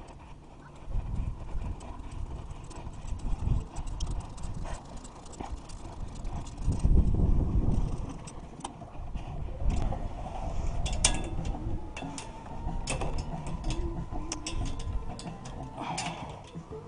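Wind rumbling on the microphone of a bicycle-mounted camera, strongest about seven seconds in, with the bike rattling and clicking over the paved path, the clicks coming thicker in the second half.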